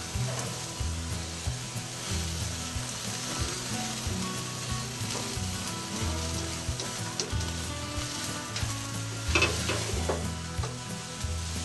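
Grease sizzling and fire crackling in a Masterbuilt Gravity Series 1050 charcoal grill as a beer can chicken flares up on the grate: fat dripping onto the heat after the grill was turned up to high. A brief clatter about nine and a half seconds in.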